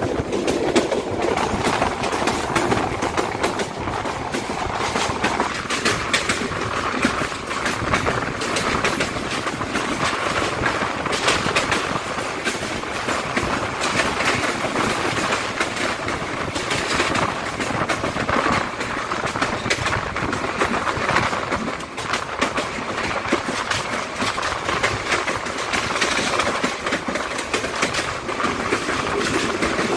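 Brahmaputra Express passenger train running at speed, heard from an open carriage doorway: a steady rumble and clatter of steel wheels on the rails, full of quick irregular clicks.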